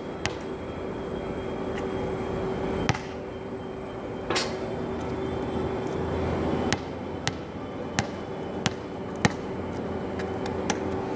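A basketball bouncing on a hard court: about nine sharp single bounces at uneven intervals, over a steady low hum and background noise.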